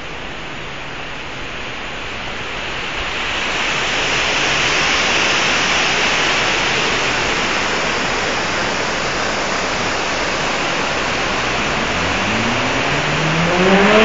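Steady rush of river water through rapids, swelling over the first few seconds and then holding. A motor vehicle's engine revs up in rising pitch about two seconds before the end.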